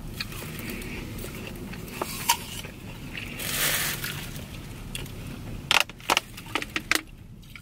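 Thin plastic water bottle crackling several times in quick succession near the end as she drinks from it, with a few earlier clicks, over a low steady rumble inside the car.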